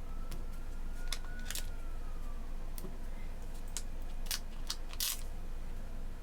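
Paper stickers being peeled from their sheets and laid onto planner pages: scattered short, crisp rustles and taps. A faint tone rises and then falls during the first couple of seconds.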